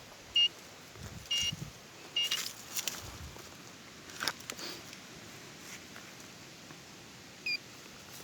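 Metal detector giving three short, high beeps about a second apart as it passes over a buried metal target. Footsteps and rustling in leaf litter can be heard between the beeps.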